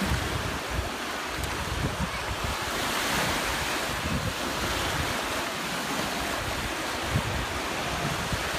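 Small surf breaking and washing up the sand in steady rushes, swelling now and then, with gusts of wind buffeting the microphone.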